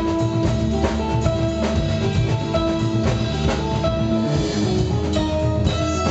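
Live jazz-funk band playing: a horn section of saxophone and brass holding sustained notes over a drum-kit beat, bass and keyboards, with a cymbal wash a little after the middle.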